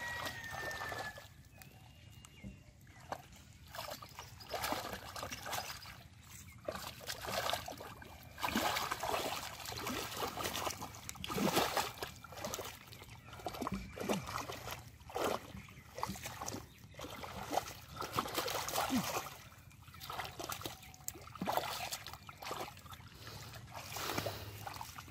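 Hands and feet sloshing and squelching through shallow mud and water, feeling for catfish, in irregular splashes that come thicker from about a third of the way in.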